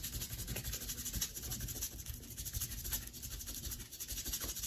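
Toothbrush with toothpaste scrubbing an eggshell in quick back-and-forth strokes, a quiet scratchy brushing sound.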